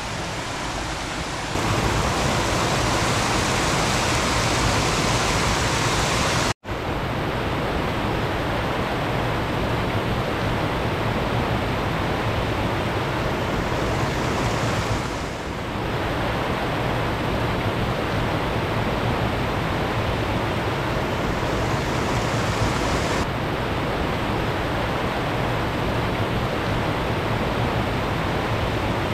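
Haymeadow Creek Falls pouring steadily: a constant rushing of falling water, with a momentary dropout about six and a half seconds in.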